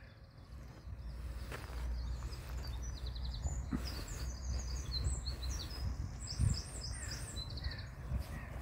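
Small birds singing in the background, a run of short high chirps and quick trills, over a low steady rumble. A brief low thump about six and a half seconds in.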